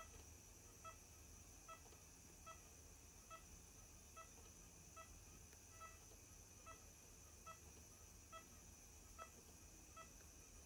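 Mindray iMEC10 patient monitor giving its faint heartbeat beep: a short tone about every 0.85 seconds, in step with the patient's heart rate of about 70 a minute.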